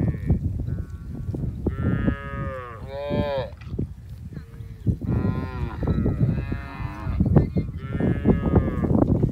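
Cattle in a herd of cows and calves mooing, about five drawn-out calls, some bending in pitch and some overlapping, over a steady low rumbling noise.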